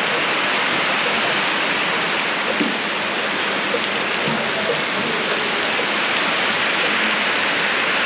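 Heavy rain pouring onto paved ground: a steady, dense hiss of rainfall with scattered splashes.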